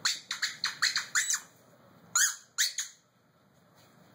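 Squeaky plush dog toy squeaking as a dog chews it: a quick run of about six short squeaks, each dropping in pitch, then two more after a short pause.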